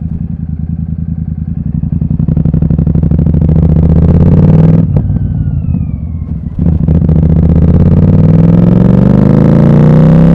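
Royal Enfield Super Meteor 650's parallel-twin engine through a Gursewak aftermarket exhaust with its dB killers removed, running loud and building. About five seconds in the throttle closes with a sharp crack and the revs fall. A second crack comes as it picks up again, and the pitch then rises steadily to the end.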